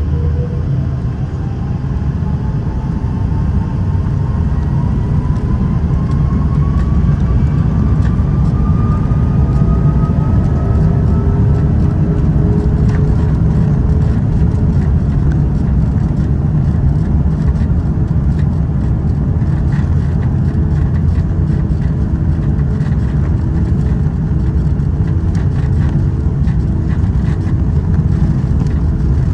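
Airbus A330's Rolls-Royce Trent 700 engines spooling up to takeoff thrust, heard from inside the cabin over the wing: a whine rising in pitch and loudness over the first dozen seconds above a deep steady rumble. The rumble of the takeoff roll continues as the aircraft speeds down the runway, with scattered knocks in the second half.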